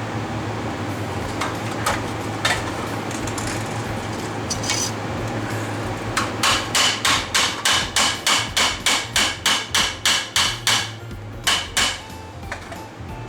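Hammer beating titanium sheet metal by hand: a few scattered blows, then a quick even run of about four strikes a second for several seconds, and two more strikes near the end, over a steady low hum.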